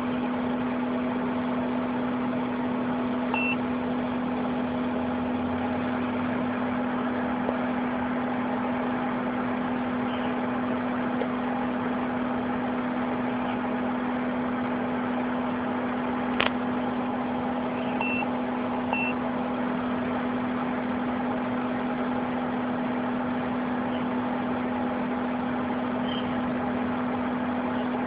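Steady low hum with a few short high-pitched beeps and one sharp click partway through.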